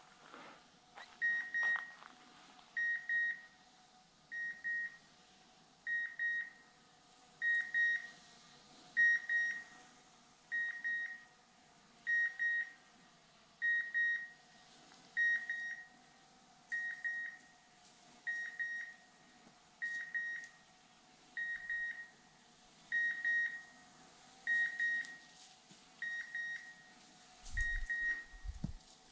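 Hunting dog's beeper collar in point mode, giving one short high beep about every one and a half seconds, the signal that the dog is standing on point.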